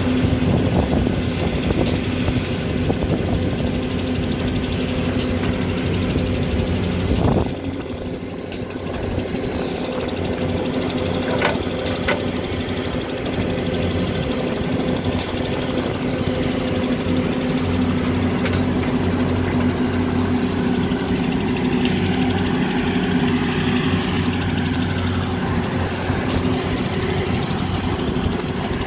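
Volvo EC210 BLC excavator's diesel engine running steadily under load as it works its hydraulics, swinging and dumping buckets of sand into a dump truck. The level dips briefly about seven seconds in, then the engine carries on.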